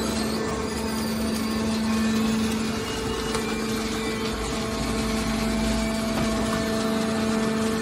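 Hydraulic can baler's pump unit running with a steady hum, with a deeper rumble for a couple of seconds about halfway through.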